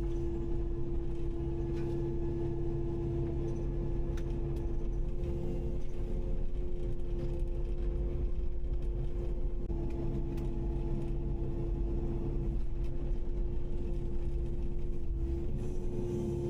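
Kubota KX080-5 excavator's diesel engine running steadily under load, with a constant hydraulic whine over a low rumble.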